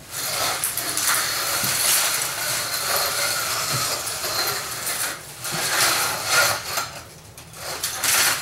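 Inline skate wheels and a wheeled walker rolling and scraping across a concrete floor, a rough, gritty rolling noise with short pauses.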